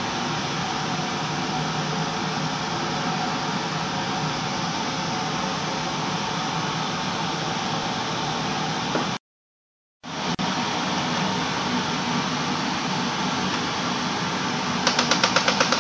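Steady, loud running of a cremation furnace's burners and blower. The noise cuts out completely for about a second partway through, and a fast rattling starts near the end.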